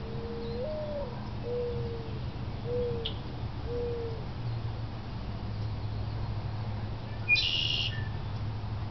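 A mourning dove cooing: one long coo that rises and falls, followed by three shorter, lower coos. About seven seconds in, another bird gives a brief, higher call.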